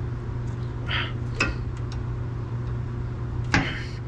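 A few sharp metal clicks of open-end wrenches on the fuel filter's threaded line fitting as it is broken loose, the loudest about three and a half seconds in, over a steady low hum.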